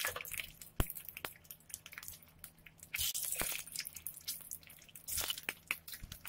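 Hot mustard oil in a pan popping and sizzling as pricked boiled eggs are set into it, with scattered sharp pops and short bursts of hissing about three and five seconds in.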